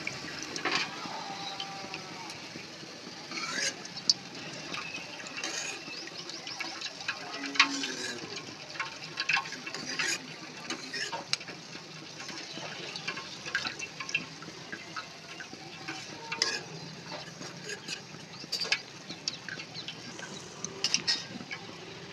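A steel wire-mesh strainer clinks and scrapes against a stainless-steel kadai as fried boondi is scooped out of hot oil and drained. The oil drips and sizzles lightly underneath, with many short, sharp clinks scattered throughout.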